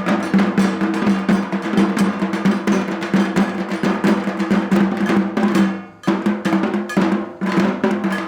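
Dhak, the Bengali barrel drum, beaten with sticks in a fast, dense roll over a steady drum pitch. The playing drops off just before six seconds in, then comes back in a few separate short flurries.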